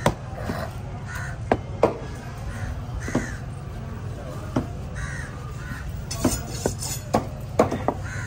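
Crows cawing repeatedly in the background while a heavy knife strikes through tuna flesh onto a wooden chopping block about eight times at irregular intervals, over a steady low hum.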